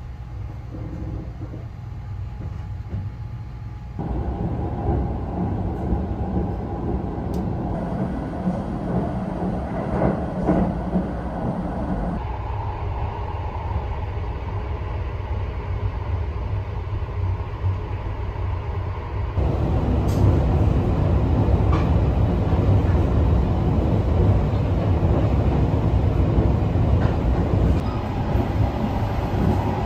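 Running noise of the Sunrise Seto sleeper train, a 285 series electric train, heard from inside the cars: a steady rumble across several clips that change abruptly about four, twelve and nineteen seconds in, loudest in the last part.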